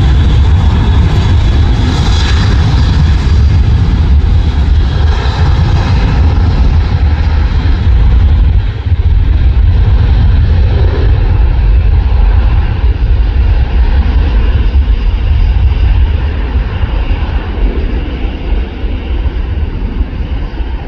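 Boeing 737-800 freighter's twin jet engines, loud and steady with a deep rumble as the plane rolls along the runway, fading somewhat from about three-quarters of the way through as it moves away.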